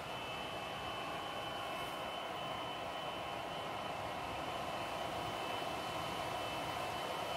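MTH model freight train running on an outdoor layout: a steady rolling drone that grows slowly louder.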